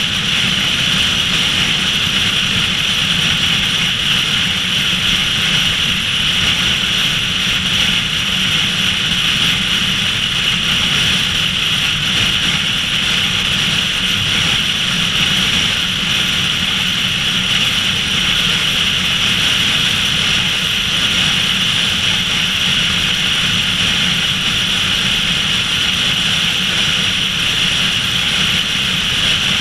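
Steady road and wind noise of a car at highway speed: a constant rushing hiss of air and tyres over a low rumble, unchanging throughout.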